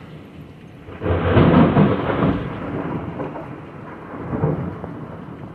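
A thunderclap rumbles in about a second in, is loudest for a second or so, then rolls away, with a smaller swell later. Heavy rain pours down underneath.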